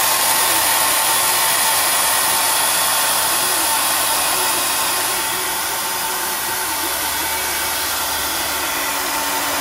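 Handheld hair dryer blowing a steady rush of air at close range onto freshly painted engine-bay sheet metal, used to dry the paint in place of an oven. A faint motor whine runs under the air noise.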